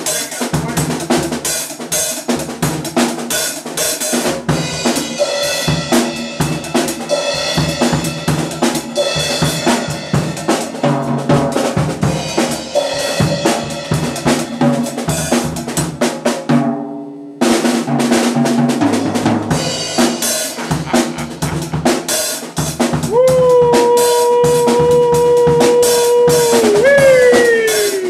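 Drum kit played hard: a dense, fast run of snare, kick and cymbal hits that breaks off briefly about two-thirds through and then starts again. Near the end a steady held tone sounds over the drums, then bends up and falls away.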